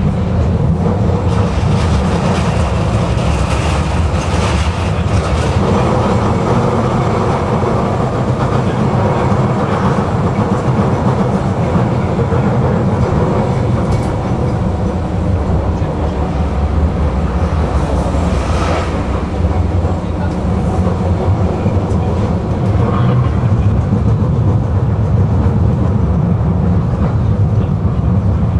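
Tram running along its track, heard from on board: a steady low rumble of steel wheels on rails, with a few sharper clicks as it passes over rail joints.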